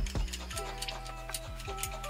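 Background music with a beat: deep kick drums that drop in pitch, quick crisp hi-hat ticks and held synth notes.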